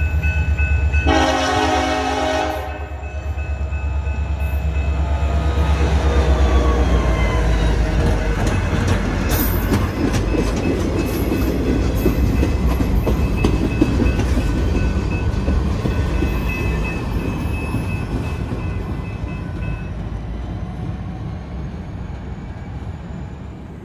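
A diesel freight train passing a grade crossing. The locomotive horn gives one short blast about a second in, then the locomotive rumbles past and the freight cars roll by with wheels clacking, slowly fading toward the end.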